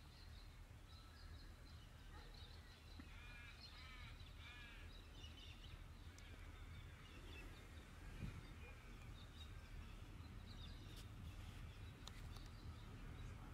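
Birds calling in quiet bushland, with a quick run of several calls a few seconds in and scattered chirps after, over a faint steady low rumble.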